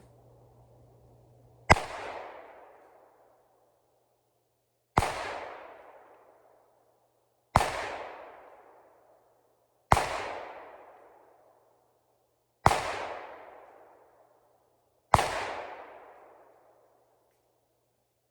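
.357 Magnum revolver fired six times, one shot every two to three seconds, each crack followed by an echo that fades over about a second and a half.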